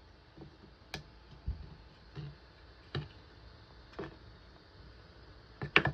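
Sharp clicks and light knocks about once a second, with a dull low thump about a second and a half in and a louder double knock near the end.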